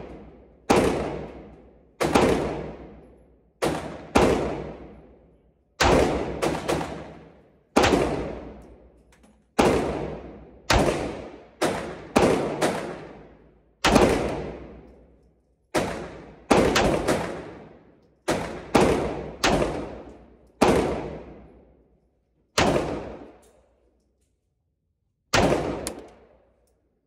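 Bulgarian Makarov 9x18mm pistol firing a string of shots on an indoor range, each shot a sharp report with a short echoing tail. The shots come at an uneven pace, sometimes in quick pairs and sometimes a second or more apart, with the last one near the end.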